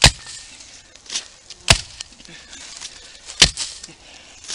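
Axe blade chopping into the trunk of a thin tree: three sharp, evenly spaced strikes, with a fainter knock between the first two.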